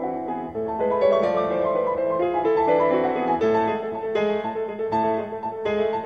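Background piano music, a quick flowing line of notes.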